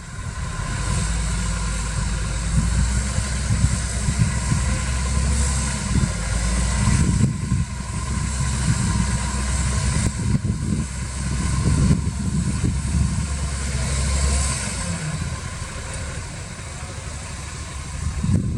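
Heavy diesel earthmoving machinery running steadily with a low engine drone. The lowest part of the drone drops away about fourteen seconds in.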